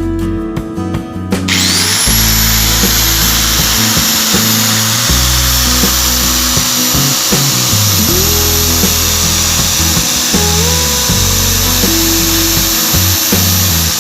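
Hikoki PDA 100M 4-inch angle grinder switched on about a second and a half in: its motor spins up with a rising whine, then runs at steady no-load speed with a high whine and airy hiss. Background music with a bass line plays underneath.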